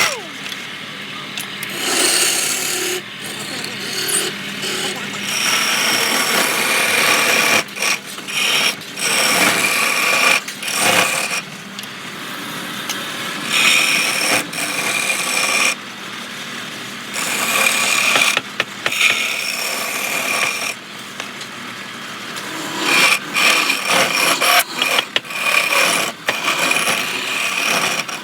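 Wood lathe running while a turning tool cuts the spinning wood: a scraping, hissing cut that keeps breaking off briefly and starting again as the tool touches and lifts off, with a faint high whine heard at times.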